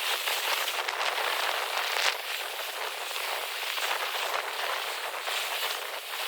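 Rain falling and striking a surface close by, a steady crackling hiss with small swells in level and no low rumble.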